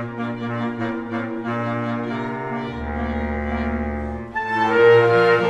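Slow chamber music for flute, clarinet, bass clarinet and string quartet, playing sustained notes. A very low held note sounds for about a second and a half in the middle, and a louder, fuller chord enters near the end.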